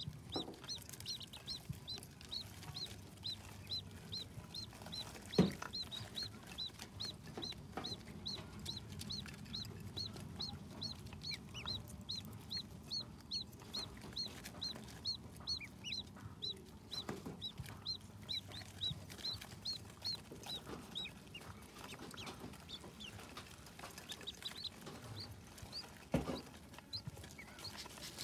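Ducklings peeping: a steady run of short, high peeps, about three a second, that thins out to scattered peeps after about twenty seconds. A thump about five seconds in, the loudest sound, and another near the end.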